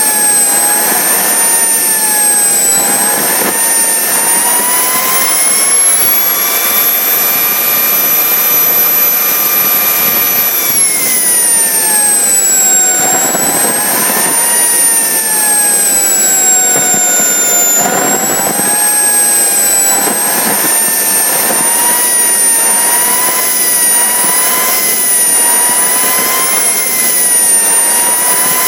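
Mini turbojet engine of about 65–80 N thrust, running on diesel with 5% rapeseed oil: a loud steady rush of exhaust with a high turbine whine on top. The whine climbs a few seconds in and holds high. It drops away about eleven seconds in, dips again a little later, then settles with small wobbles in speed.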